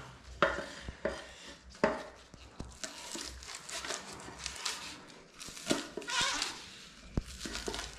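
Kitchen knife slicing green onions on a wooden cutting board: crunching cuts through the stalks and a few irregular knocks of the blade on the board. The knife is dull.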